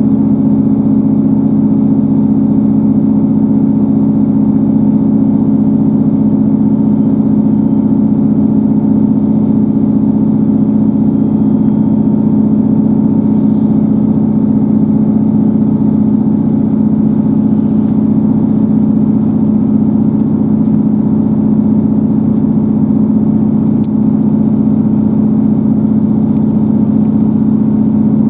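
Inside the passenger saloon of a Class 158 diesel multiple unit at speed: a steady, loud drone from the underfloor diesel engine and the wheels running on the track, with a constant low hum throughout.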